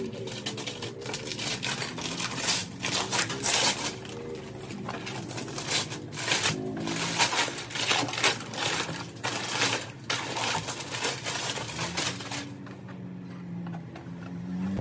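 Brown kraft-paper wrapping being cut with scissors, then torn and crumpled as it is pulled off a cardboard box: an irregular run of crackling rustles that thins out near the end.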